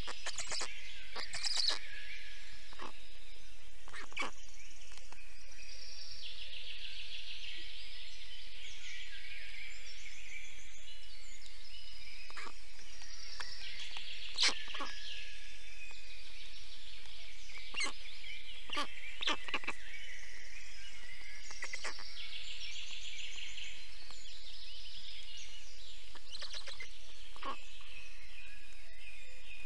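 Dawn-chorus-like singing of forest songbirds, a continuous high-pitched chorus with rapid trills. It is broken by a few scattered short clicks or snaps, the sharpest about halfway through.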